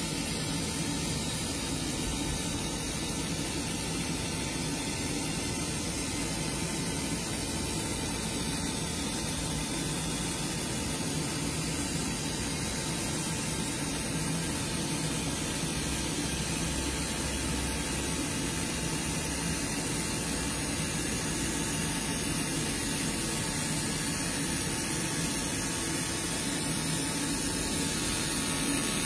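Steady whir and hiss of a fiber laser marking machine running as it frosts a glass mirror, an even noise with a faint hum and no breaks.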